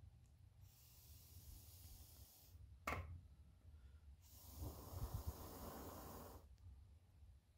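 Faint breathing: two long breaths through the nose, the first thin and hissy, the second fuller, with a small sharp click between them.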